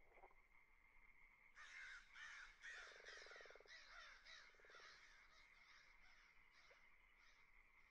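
A faint series of about a dozen bird calls, about two a second, growing fainter toward the end, over a faint steady high-pitched tone.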